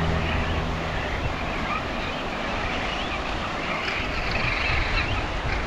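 Steady shoreline ambience of surf and wind, with faint scattered high chirps over it. The held tones of a music track die away about half a second in.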